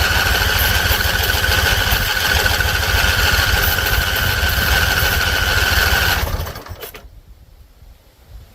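Husqvarna Z254 zero-turn mower's engine spinning up and running with a steady whine for about six seconds, then winding down and stopping. This is a start attempt on an engine that is thought to have flooded.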